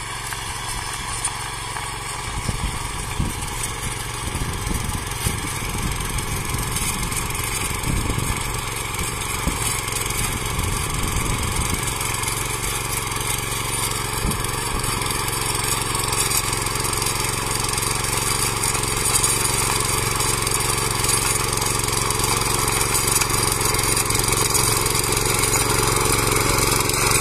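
The small engine of a mini power tiller runs steadily under load as its rotary tines work the soil, growing gradually louder as the machine comes closer.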